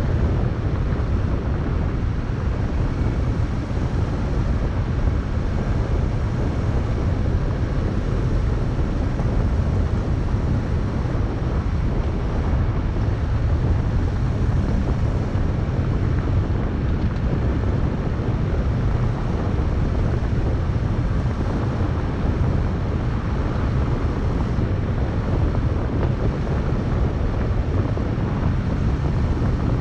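Steady rumble of a vehicle driving along a gravel road, tyre and road noise mixed with wind buffeting the microphone. It holds an even level throughout, with no engine note standing out.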